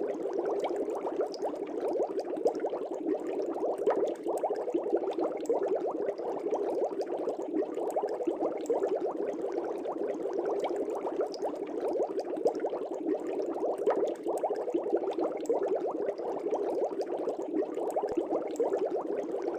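Aquarium air bubbles rising and breaking at the water surface in a steady, dense stream of small pops and gurgles.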